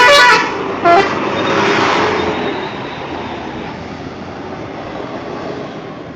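Bus's multi-tone 'telolet' musical horn finishing a stepped melody, with one more short toot about a second in. Then the bus's engine and road noise fade steadily as it drives away.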